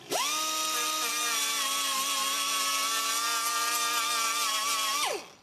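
Small electric power tool motor whining: it spins up quickly at the start, runs at a steady pitch for about five seconds, then winds down near the end.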